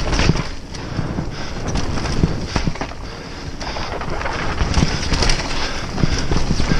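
Mountain bike descending a dirt singletrack at speed: wind rushing over the microphone, tyres rumbling on the dirt, and frequent knocks and rattles as the bike hits bumps.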